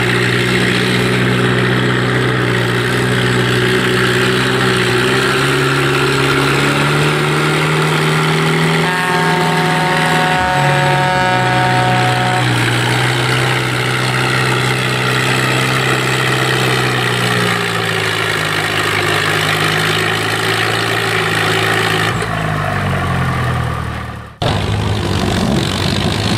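Farm tractor's engine under load pulling a truck-mounted weight-transfer sled, a steady drone whose pitch steps down in the last third. A held, horn-like tone sounds for about three seconds midway. The sound breaks off abruptly near the end.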